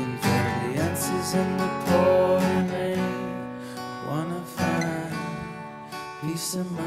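Several acoustic guitars strumming chords together in an instrumental passage of a song, with no vocal line.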